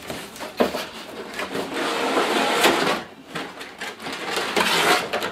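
Clear plastic blister packaging sliding out of a cardboard figure box, crinkling, crackling and scraping, loudest in two spells of handling.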